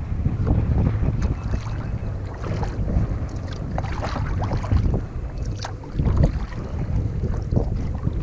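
Wind buffeting the microphone in a steady low rumble, with irregular water splashes and drips from kayak paddle strokes.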